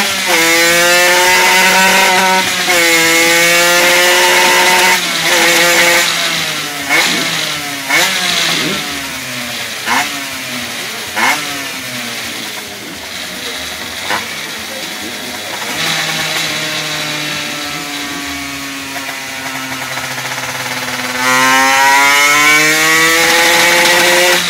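Aprilia RX 75cc two-stroke engine revving hard on a dyno roller: long high-rev pulls with pitch slowly climbing, then a series of short, sharp throttle blips, then a slow climb to a loud high-rev stretch that cuts off at the end. The owner says the bike runs badly.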